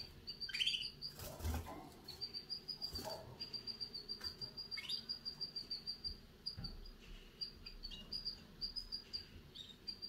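Young canary chirping: a long run of short, high notes all at about the same pitch, several a second, a young bird's early attempts at song. A couple of brief rustles in the cage, the loudest about a second in.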